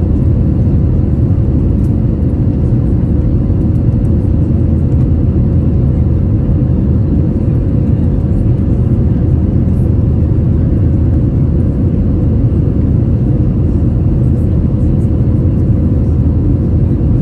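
Steady cabin roar of an Airbus A321-231 climbing after takeoff: its IAE V2500 turbofan engines and the rushing airflow, heard from a seat over the wing. The roar is mostly a deep rumble, with a faint steady hum above it.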